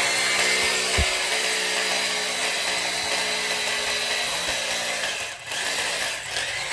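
Handheld electric power tool running steadily, a motor hum under a dense hiss, dipping briefly about five and a half seconds in.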